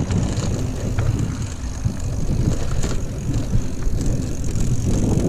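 Mountain bike rolling along a dry dirt trail: wind buffeting the microphone over steady tyre noise, with a few light clicks and rattles from the bike.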